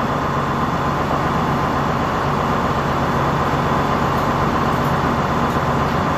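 A motor running steadily with a low, even drone that does not change.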